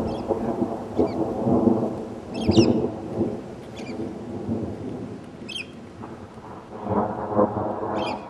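Thunder rumbling in rolling swells, loudest about two and a half seconds in and again near the end, with short high bird chirps over it.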